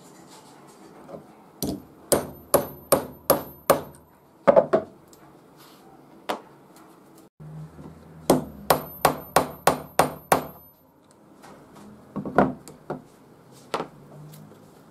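Hammer blows setting brass fasteners into a leather sheath on a wooden block: two quick runs of about seven sharp strikes each, with a faint metallic ring, and a few single blows between and after.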